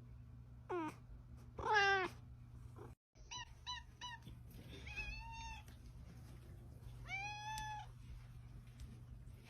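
A cat meowing repeatedly. First a short rising call, then the loudest, wavering meow. After a brief break come three quick short calls and two longer, arched meows.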